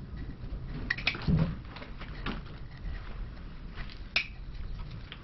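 Stripped copper wire core being wound by hand around a copper water pipe over a drill hole, a patch before soldering: small scrapes and clicks, with a sharp click about four seconds in.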